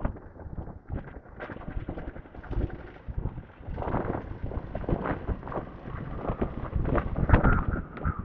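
Wind buffeting a helmet microphone on a moving motorcycle, in uneven gusts over a low rumble of engine and road. A thin steady whine comes in near the end.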